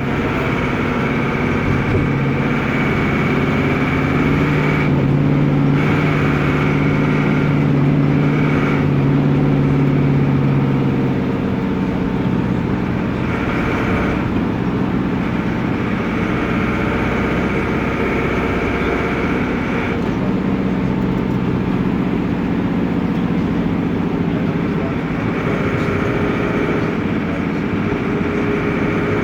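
Air-cooled Deutz F4L912 four-cylinder diesel of an Otokar M-2000 minibus running noisily while driving. Its note rises and falls several times as the engine is pulled and eased off.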